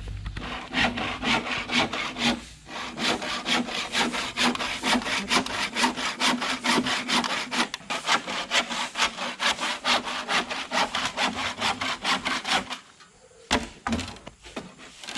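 Handsaw cutting through bamboo with quick, even back-and-forth strokes, about four a second, with a brief pause near the start. The sawing stops about two seconds before the end.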